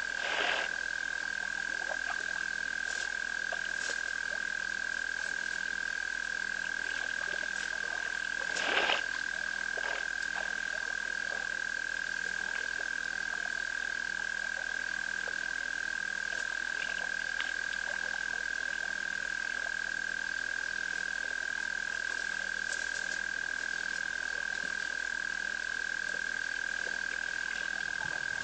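Frogs at a waterhole at night, calling in a steady, unbroken high-pitched trill that holds one pitch throughout. Two brief louder noises break through, one about half a second in and a stronger one near nine seconds.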